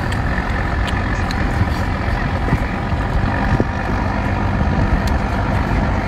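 Steady, loud drone of an idling engine, with a few faint sharp clicks.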